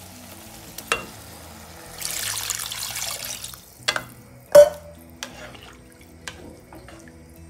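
Water poured into a hot pan of sautéed greens and vegetables: a splashing hiss lasting about a second and a half, followed by a loud knock and lighter clicks of a spatula against the pan.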